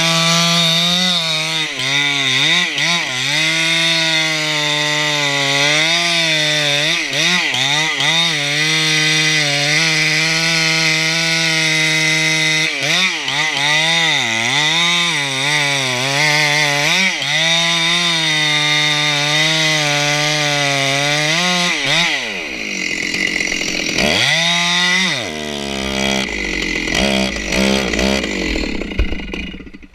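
Stihl 064 Magnum two-stroke chainsaw sawing into redwood at full throttle, its pitch dipping again and again as the chain loads up in the wood. About 22 seconds in it drops off the throttle, revs up once briefly, then runs low and uneven before dying away near the end.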